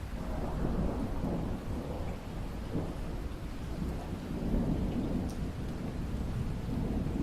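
Steady rain with rolling thunder: a low rumble swells in at the start and rumbles on unevenly, louder again around the middle, over the constant hiss of the rain.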